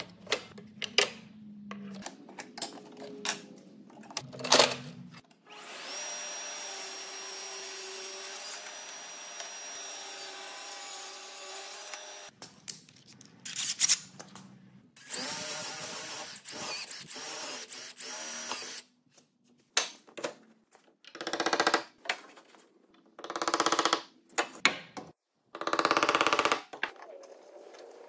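Festool CSC SYS 50 cordless table saw running steadily for about seven seconds while it cuts walnut, after a few knocks of the fence being set. About halfway through comes a Festool CXS 18 cordless drill, run up and down in pitch and then in several short bursts while drilling pilot holes.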